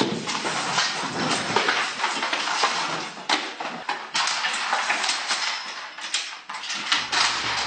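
A metal folding chair clattering and clanking as someone struggles to open it and sit on it, a dense run of rattling knocks and scrapes throughout.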